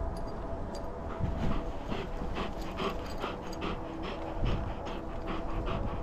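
A dog panting close to the microphone with its mouth open, in quick even breaths of about three a second that become clear about two seconds in.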